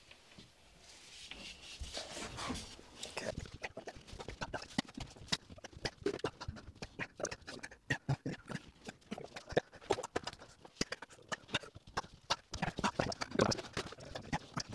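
Plasterboard being handled and put up on a ceiling from a stepladder. A short scraping noise about a second in, then rapid, irregular knocks and clatter.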